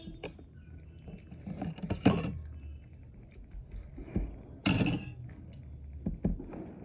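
Close-miked eating sounds: chewing with many small mouth and utensil clicks, and two louder noisy bursts of crunching or slurping about two seconds in and again about five seconds in.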